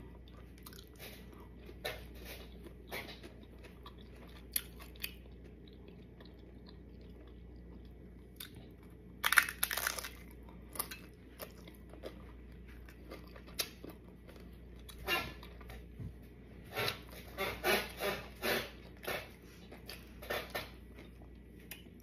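A person chewing and crunching on tacos, with scattered bites. The loudest crunch is about nine seconds in, and a quick run of crunches comes between fifteen and nineteen seconds.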